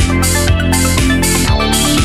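Electronic background music with a steady beat, about two beats a second.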